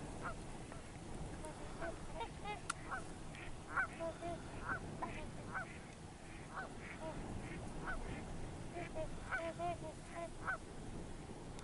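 A large flock of migrating waterfowl calling: many short, pitched calls overlapping at a distance, several each second, over a low background hiss.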